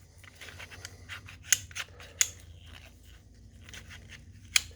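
The slide of a Beretta 81 .32 ACP pistol being worked onto its frame by hand: light metal scraping and a few sharp clicks as the parts catch against each other.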